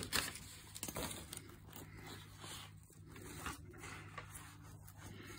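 Faint rustling and scraping of a sheet of A4 paper being handled, with a few small clicks in the first second and a steady low hum underneath.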